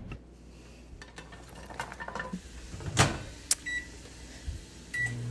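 Microwave oven being worked: a thump and a sharp click, then two short high keypad beeps about a second apart. A low steady hum starts with the second beep near the end as the oven begins running.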